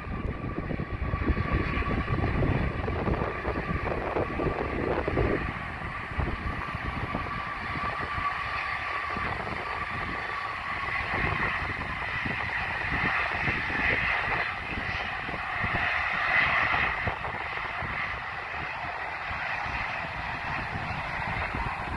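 Jet engines of a taxiing four-engine Airbus A340-213 (CFM56 turbofans) running at low taxi power: a steady whine over a rumble. The whine strengthens about halfway through. Gusts of wind buffet the microphone early on.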